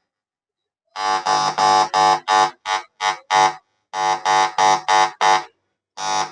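Loudspeaker of a repaired e-rickshaw sound amplifier buzzing in short, loud bursts, about three a second in groups, as a hand touches the 6283 amplifier IC's pins, showing the amplifier now works after the IC change. The bursts begin about a second in.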